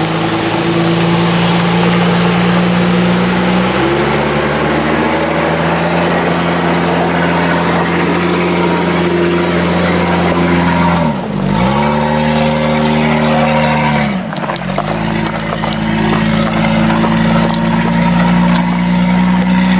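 A 4x4 truck's engine runs at steady revs under load. Twice the revs dip briefly and climb back.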